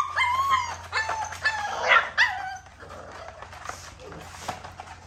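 Six-week-old American bully puppy whining and yelping in a run of short high cries as dewormer is given by oral syringe; the cries stop about two and a half seconds in.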